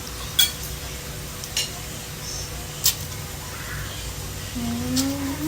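Cutlery clinking against a dish four separate times while eating. A short rising hum from a voice comes near the end.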